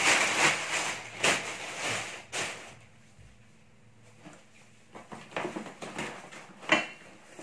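Plastic courier bag rustling and crinkling as it is pulled off a cardboard box, for about the first two and a half seconds; then quieter handling with a few soft knocks and a sharp click near the end.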